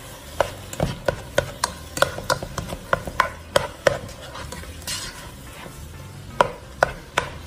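A utensil stirring chicken in a cooking pot, knocking and scraping against the pot in irregular taps about three a second, over a faint sizzle. The taps thin out for a couple of seconds past the middle, then pick up again.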